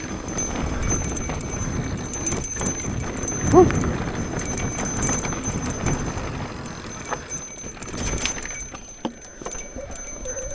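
A mountain bike riding over a rough trail: tyres rumbling over dirt and rocks with the chain and bike parts rattling and clicking, and a short vocal grunt from the rider about three and a half seconds in.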